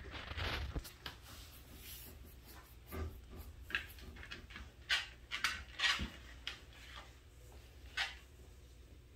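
Basset hound puppy moving about on a laminate floor: scattered light clicks and scuffs of paws and claws. The most movement is in the first second, then only occasional clicks while it stands still.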